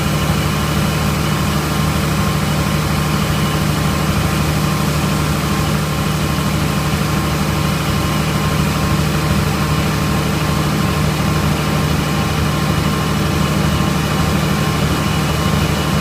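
IH 686 Turbo tractor's diesel engine running at a steady speed, driving an IH 82 combine whose unloading auger is emptying oats into a grain cart; a constant drone of engine and machinery with no changes in speed.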